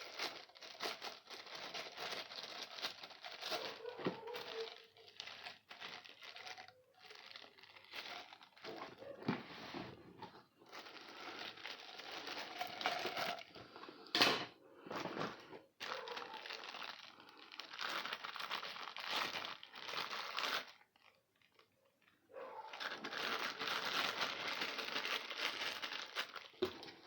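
Packaging being unwrapped by hand: irregular crinkling and rustling, with a sharper crack about halfway through and a brief pause about three quarters of the way in.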